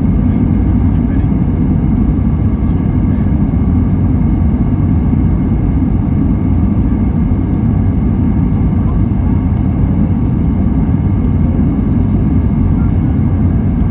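Steady, loud cabin noise of an Airbus A320 as heard from a seat behind the wing: engines and airflow, a low, even roar with no distinct events.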